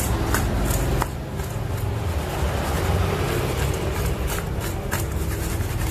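Tofu pieces tossed and rubbed together in a stainless-steel bowl while being coated in seasoning, with scattered light clicks against the metal. A steady low rumble runs underneath.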